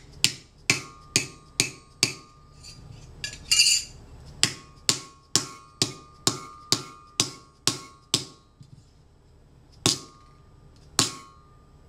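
Shot-filled rubber dead blow hammer striking a roll-textured metal sheet on a steel anvil to flatten it: a run of sharp blows about two a second, a short break about three seconds in, another steady run, then two last, spaced blows. Many blows leave a faint ringing tone.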